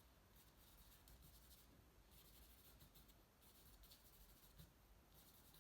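Faint scratching of charcoal scribbled in quick strokes across cartridge paper, coming in several spells with short pauses between.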